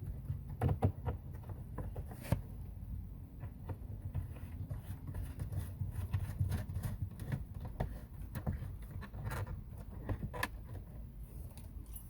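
Scattered small clicks, knocks and rattles of hands working on wiring and fasteners, over a low steady background noise.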